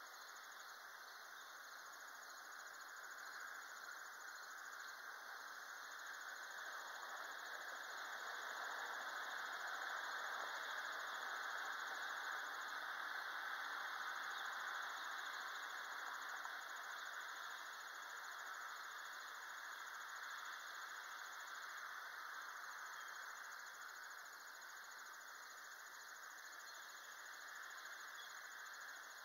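Faint, steady outdoor ambience: an even hiss that slowly grows louder in the middle and then eases off again.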